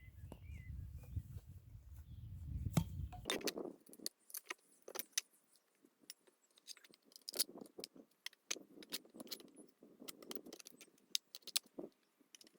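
Small metal tools and nails clinking and rattling as they are handled, a run of sharp irregular clicks that follows a low rumble lasting about the first three seconds.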